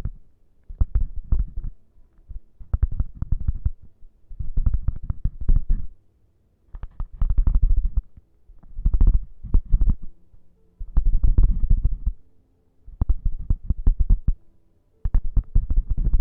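A prop rubbed and scratched right on the microphone, in bursts of dense crackling about a second long, with heavy low rumble and short pauses between, about nine times.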